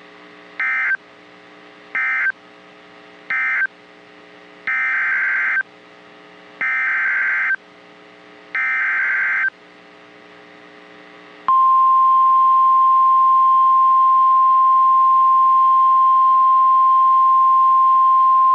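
Emergency Alert System data bursts. Three short end-of-message bursts close out the flash flood warning, then three longer header bursts of about a second each, two seconds apart, announce the next warning. About eleven seconds in, the single steady high attention tone of a National Weather Service alert starts and holds, over a faint steady hum.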